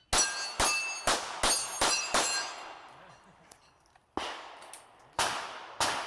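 Pistol shots on steel targets, each shot followed by the ring of the steel. A quick string of six shots comes in about two seconds, then a pause of nearly two seconds, then three more shots.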